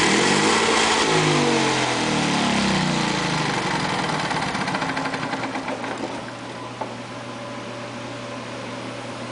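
Honda EV6010 generator's engine being cranked over, its speed swinging up and down, then winding down and stopping about six seconds in. The generator has a no-start fault.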